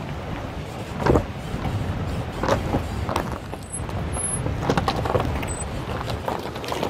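Suzuki Mehran rolling slowly over a loose, rocky gravel road: a steady rumble of tyres on stones, broken by several sharp knocks and bangs as the wheels and suspension hit rocks. The loudest knock comes about a second in.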